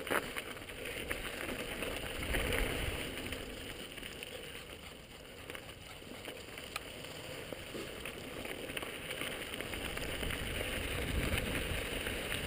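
Mountain bike rolling down a rocky dirt trail: steady tyre noise on loose gravel mixed with wind rushing over a helmet-mounted camera's microphone, with a few sharp clicks and knocks from the bike. The rumble swells about two seconds in and again near the end.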